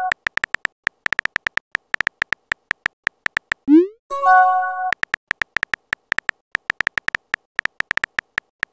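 Texting-app sound effects: a rapid, uneven run of keyboard key clicks as a message is typed. About four seconds in, a short rising swoop and a brief pitched chime mark the message being sent, then the typing clicks resume.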